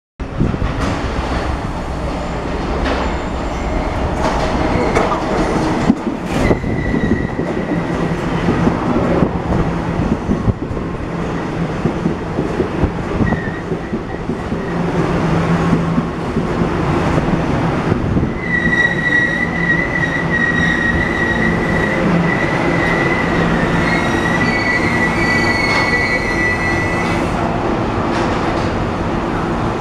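Taiwan Railway electric multiple-unit commuter train running along the platform, with steady wheel and track rumble and clatter. A high wheel squeal comes in briefly near the start and again for several seconds in the second half.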